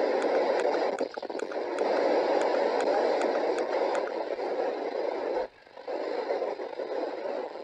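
CB radio speaker hissing with band static, with faint ticks of interference about two or three a second. The hiss cuts out briefly about five and a half seconds in, then comes back.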